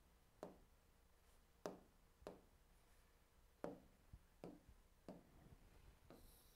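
About seven faint, sharp taps on an interactive touchscreen board at irregular intervals, as toolbar buttons and a colour are selected, over a low room hum.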